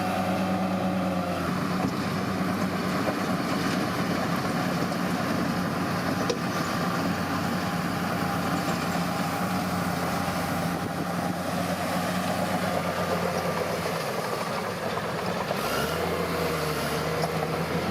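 Bulldozer's diesel engine running steadily, its note shifting slightly about a second and a half in and again near the end.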